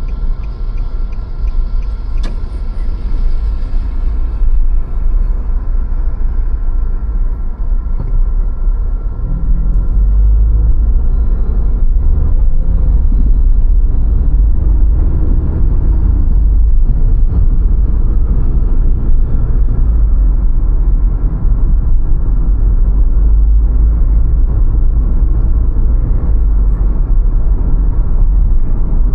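Car driving on the road: a low, steady engine and road rumble that grows louder about nine seconds in, with a faint rising engine note between about twelve and sixteen seconds.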